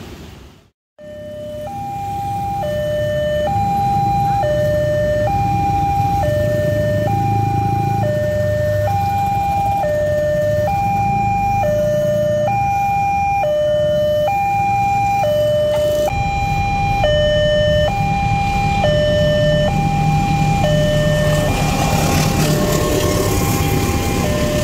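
Railway level-crossing warning alarm sounding, alternating between a high and a low tone at roughly one pair every 1.3 seconds, over the low running of waiting motorcycles. It begins about a second in, and near the end the noise of a passing passenger train rises beneath it.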